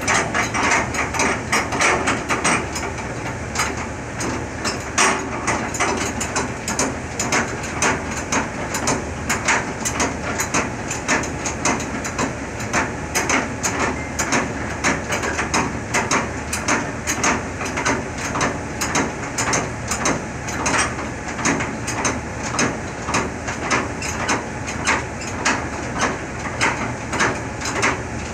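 Hand crank of a semi-trailer's landing gear being turned, the leg gearing clanking in a steady rhythm of about two a second as the trailer's height is set for uncoupling.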